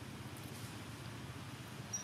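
Faint steady low background hum of outdoor ambience, with one short high-pitched squeak near the end.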